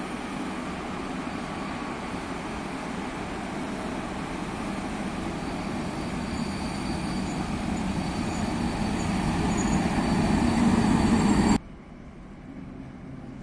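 Electric locomotive-hauled train approaching on the tracks, its rumble growing steadily louder, with thin high-pitched tones joining about halfway through. Near the end the sound cuts off abruptly to a much quieter background.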